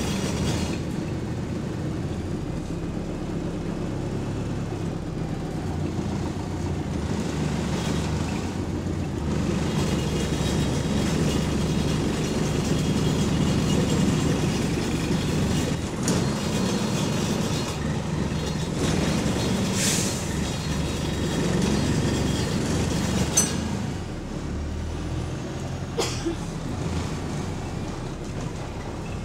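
Go-Ahead London bus WS116 under way, heard from on board: its engine runs steadily beneath a clatter of rattling interior parts. A short hiss comes about twenty seconds in, followed by a couple of sharp knocks.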